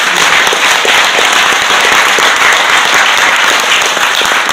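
A roomful of people applauding loudly and steadily, many hands clapping together.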